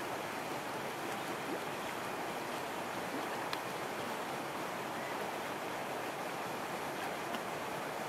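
Small waves lapping on a lake, a steady even wash of water noise, with a faint tick about three and a half seconds in.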